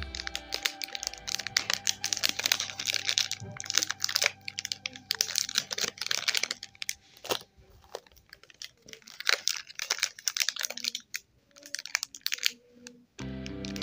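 Crinkling and crackling of sealed plastic snack wrappers squeezed and handled in the fingers, first a Lotte Choco Pie packet and then a biscuit packet, in runs of quick sharp crackles with short pauses. Faint background music under it, which turns louder near the end.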